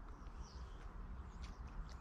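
Faint outdoor ambience by the water: a low rumble of wind on the microphone, with a few short, high-pitched bird calls scattered through it.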